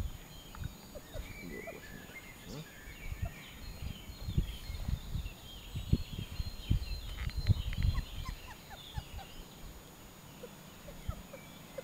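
A litter of young puppies moving about on a fleece blanket on grass: soft, irregular low bumps and rustles, with faint short high chirps throughout.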